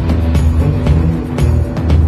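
Background music with a heavy bass line and a steady drum beat.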